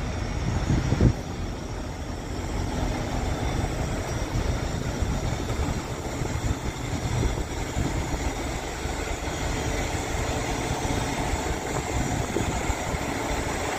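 Steady low rumble of a heavy truck's engine idling.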